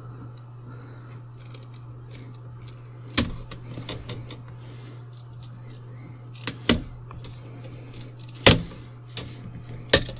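Plastic screen bezel of a Dell laptop being prised off with a spudger: sharp snaps and clicks as the catches and glued bottom edge let go, four loud ones with smaller crackles between, over a steady low hum.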